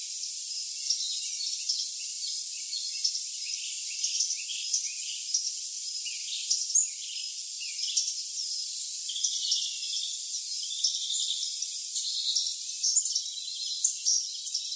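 Crickets keep up a steady high trill while songbirds chirp and twitter over it in many short calls. The sound is thin and hissy, with everything below the high range cut away.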